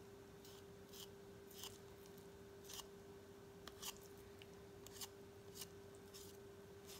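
Faint, crisp snicks of a kitchen knife making small cuts through raw chicken along the breastbone, irregular, about one or two a second, over a steady faint hum.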